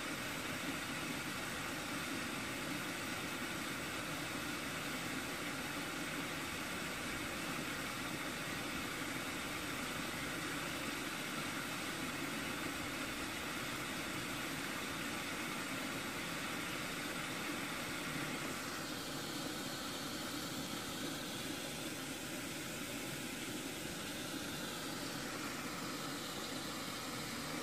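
Steady rush of water pouring down an artificial wall waterfall into its basin, an even hiss-like noise. Its tone changes a little about two-thirds of the way in.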